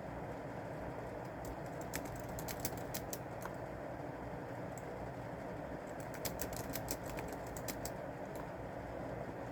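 Typing on a keyboard: two short bursts of rapid key clicks, one in the first few seconds and another a little past the middle, with a pause between them, over a steady low background hiss.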